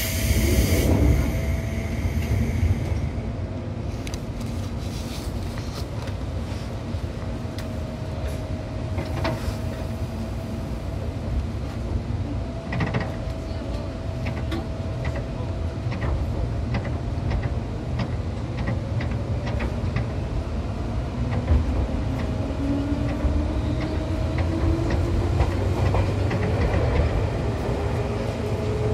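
Onboard running sound of Seibu train set 263F: steady rumble and hum with rail-joint clicks, and a whine that rises in pitch near the end as the train gathers speed. A loud hiss sounds over the first couple of seconds.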